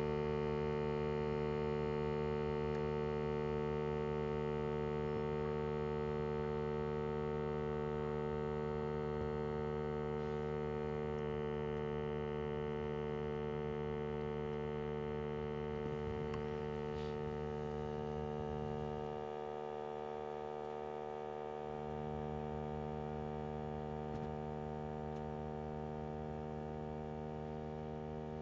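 Steady humming tone with many overtones from a BMW E39 530d after its engine has been switched off, a sound that appears only since the EGR vacuum hose was disconnected and that lasts about a minute and a half after shutdown. The deepest part of the hum drops out for about two seconds about two-thirds of the way through.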